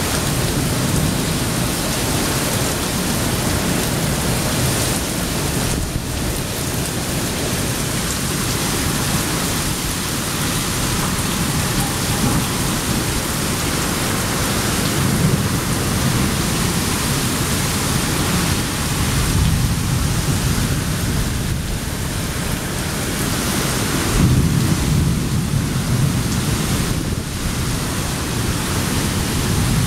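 Violent tornado-storm wind blowing hard and without a break through trees, with a deep rumble and several louder surges as gusts hit.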